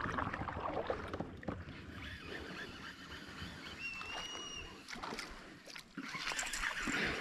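Water sloshing and small knocks around a kayak on a river, with a short high whistle a little before the middle.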